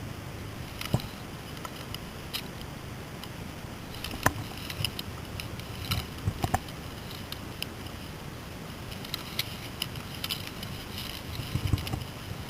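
Scattered sharp clicks and snaps, with a quicker run of them about nine to eleven seconds in, over a low steady rumble of wind on the microphone.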